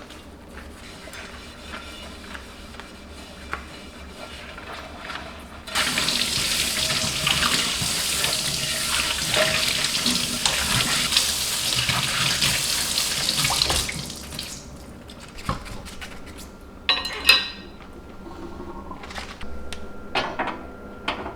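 Kitchen tap running into the sink for about eight seconds, starting about a quarter of the way in and stopping just past the middle. Dishes and utensils clink around it, with one sharp clank a few seconds after the water stops.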